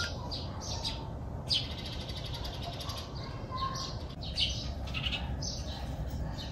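Small birds chirping outside, short high calls coming one or two a second, over a steady low rumble.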